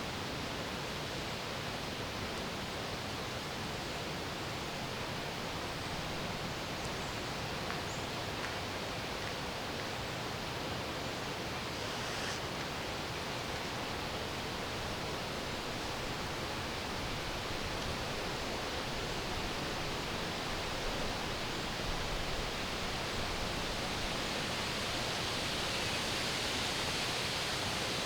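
Steady wind rushing through trees, an even hiss that swells a little near the end.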